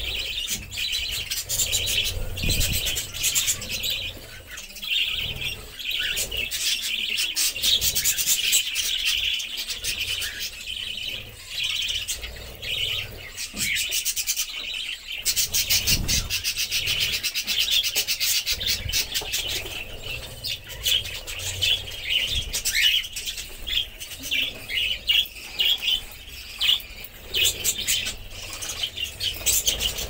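A flock of budgerigars chattering continuously: a dense, busy mix of chirps, warbles and rapid clicking calls, with a few dull low thumps, about two seconds in and around the middle.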